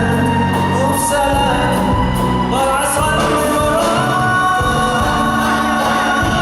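A live band plays a devotional song with singers; the vocal melody slides between notes over a steady bass and a regular percussion beat.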